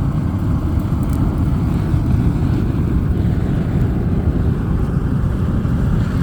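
Steady low roar of a fan-fed coal fire in a homemade pit furnace, burning hard.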